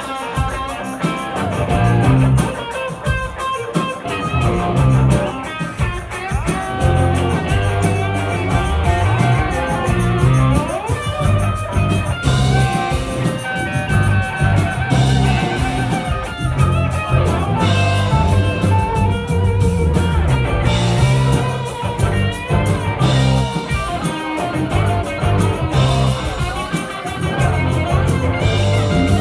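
Live rock band playing an instrumental passage with no vocals: electric guitars over bass, drums and keyboards, with a steady beat.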